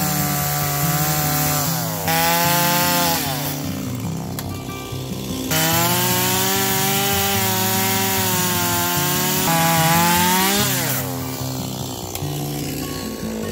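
Stihl MS170 small two-stroke chainsaw cutting through a log. It goes to full throttle about two seconds in and falls back after a second or so. It opens up again for about five seconds, its pitch dipping slightly as the chain bites, then drops back toward idle near the end as the cut finishes.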